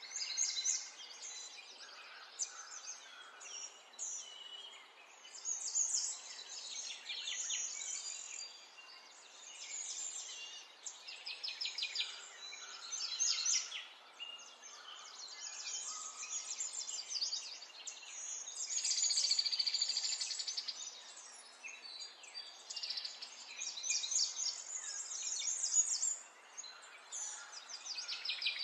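A small songbird sings long runs of fast, high chirps and trills, broken by short pauses.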